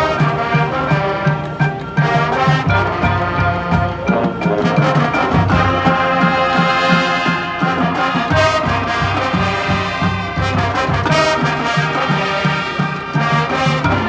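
High school marching band playing its field show: a brass section of trombones and trumpets carries sustained chords, with drum strikes underneath.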